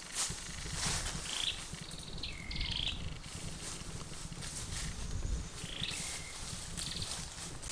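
Dry bamboo leaf litter crunching and rustling, with a bird giving a few short calls that drop in pitch to a held note, about a second and a half in, at two and a half seconds and near six seconds.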